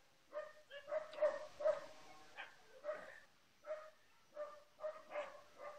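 An animal calling over and over in short, pitched yelps, about a dozen of them at uneven intervals, some in quick pairs.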